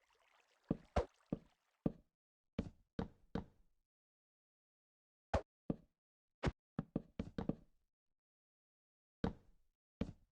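Irregular sharp knocks, about sixteen in loose clusters with pauses of a second or two between them.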